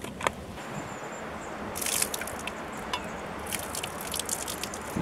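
Liquid poured from a vacuum flask into its cup, splashing and trickling onto the ground from about two seconds in. A single knock comes just after the start.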